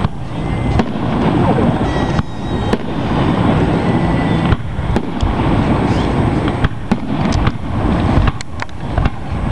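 Fireworks display: aerial shells bursting with sharp bangs a second or two apart, then a quicker run of bangs and crackles near the end, over a steady loud background noise.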